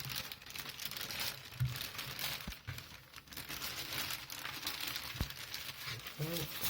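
Irregular crinkling and rustling of packaging as a newly unboxed bike helmet is handled, with a couple of small clicks.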